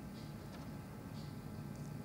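Faint handling sounds of a hand crimping tool being squeezed on a nylon-insulated ring terminal on a wire, two soft rustles over a steady low room hum.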